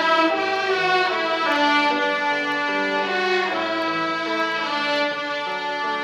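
A children's violin ensemble playing a slow hymn melody, with held bowed notes that change every half second to a second.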